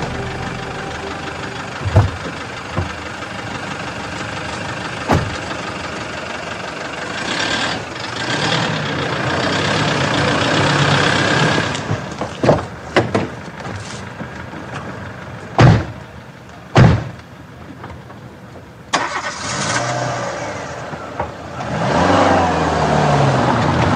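Car engines running and driving off, swelling twice as the cars pull away. Several sharp, loud thumps of car doors being shut stand out above the engine noise.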